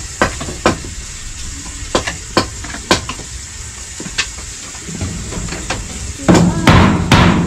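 Scattered sharp knocks and taps of hand-tool work on a bamboo roof beam. From about six seconds in, a fast run of loud strokes, about three a second.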